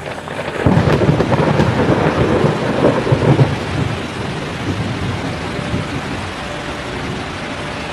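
Heavy rainstorm noise: a loud, rough low rumble for about the first three seconds, easing into a steady hiss of rain.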